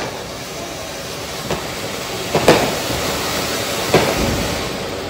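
A lit firework hissing steadily as it burns, with three sharp firecracker cracks, the loudest about halfway through.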